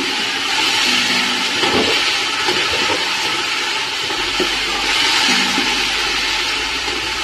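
Sliced capsicum, onion and tomato sizzling steadily in hot oil, stir-fried with a wooden spatula scraping around a metal pot, after vinegar and soy sauce have gone in.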